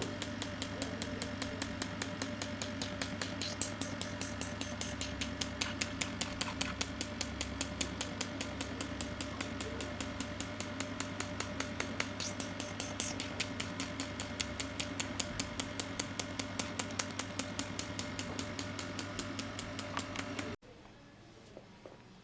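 GL3 oxygen facial machine running: a fast, even pulsing over a steady hum, with two brief hisses of air. It cuts off suddenly near the end.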